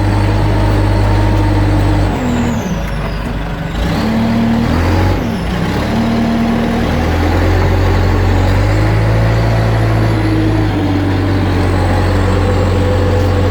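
Backhoe engine running in first gear at a crawl under the load of towing a car. Its pitch dips and rises several times from about two to six seconds in, then holds steady.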